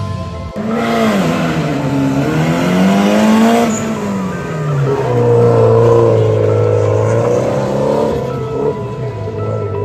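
Car engine revving hard, its pitch swinging up and down several times as the car is thrown around cones, then held at a steady high engine speed for a few seconds before easing off near the end.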